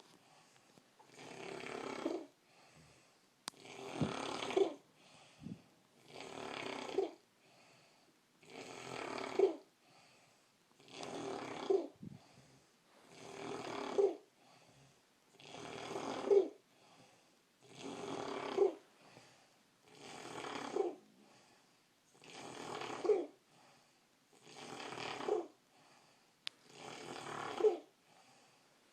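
A person snoring in a steady rhythm, one snore about every two and a half seconds, each ending in a short squeak.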